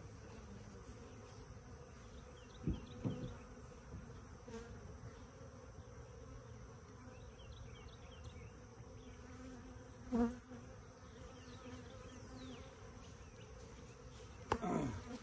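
Honeybees buzzing steadily around an open, freshly smoked hive, with a few faint knocks a few seconds in and again about ten seconds in.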